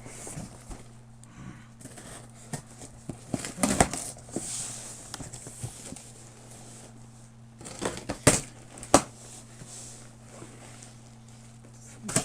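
A cardboard shipping box being opened and unpacked: crinkling and rustling of packing material with sharp knocks and scrapes, loudest around four seconds in and again around eight to nine seconds in.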